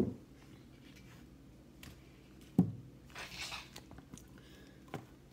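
Handling noise on the recording device: a sharp knock at the start and another about two and a half seconds in, followed by a short rustle, then a faint click near the end.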